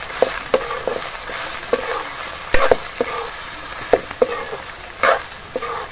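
Pork pieces sizzling steadily as they fry in their own rendered fat in a metal wok. A metal ladle stirs them, clinking and scraping against the pan every half second or so, with the loudest knocks about two and a half seconds in and near the end.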